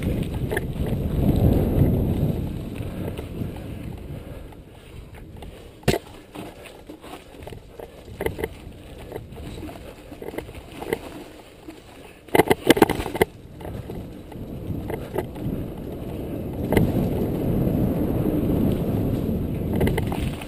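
Mountain bike riding fast over a cross-country course, with wind rushing on the microphone and tyre rumble. In the middle the rush drops and the bike clicks and rattles over rough ground, with a burst of loud knocks about two thirds of the way through. The rush picks up again near the end.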